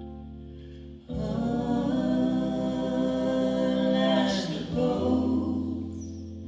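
Women's voices singing a long phrase together in harmony, coming in about a second in and fading out about five seconds in, over a held keyboard chord that rings on after the voices stop.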